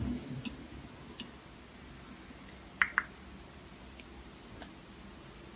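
Cabinet drawer sliding open with a short low rumble at the start, then quiet room tone broken by two sharp clicks in quick succession about three seconds in.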